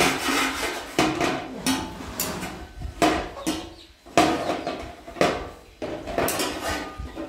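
Repeated sharp knocks or clatters, about one a second, each with a short ringing tail.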